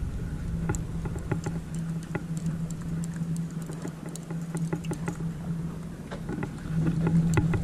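A steady low engine hum with scattered light clicks and taps over it, several a second, growing a little louder near the end.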